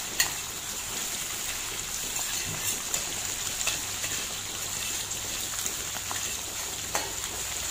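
Garlic, chili, clams and smoked meat frying in hot olive oil in a pan: a steady sizzle, with a few sharp clicks of a utensil stirring against the pan.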